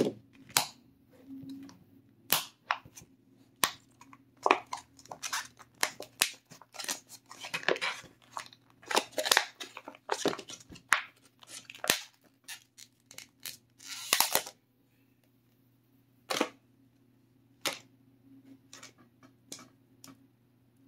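Thin plastic deli container crackling and snapping as it is torn and peeled away from a cured mold: a dense run of sharp crackles, thinning after about two-thirds of the way to a few scattered clicks.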